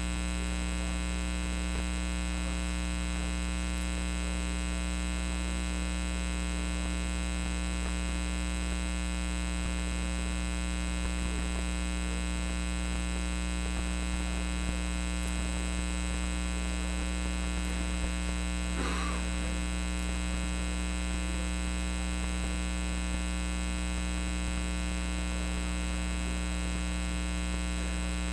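Steady electrical mains hum, a low drone with a stack of higher overtones, unchanging throughout; a brief faint sound rises over it about two-thirds of the way through.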